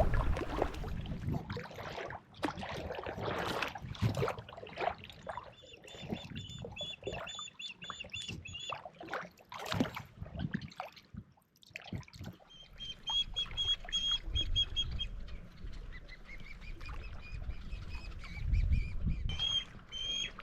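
Water birds calling: bouts of short, high call notes repeated about three or four times a second, starting and stopping several times. Irregular splashes and knocks and a low rumble run underneath.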